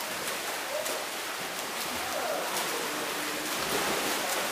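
Water polo players splashing and churning the water in an indoor pool hall, heard as a steady rush of water noise. Faint, distant voices call out now and then.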